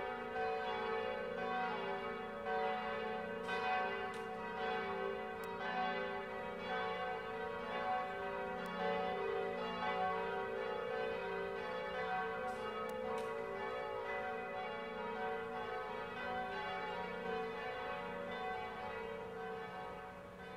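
Several church bells pealing together in a continuous overlapping ring, fading out near the end.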